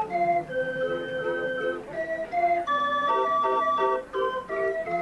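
Hand-cranked barrel organ (street organ) playing a tune: held pipe notes for the melody over short, repeated chords.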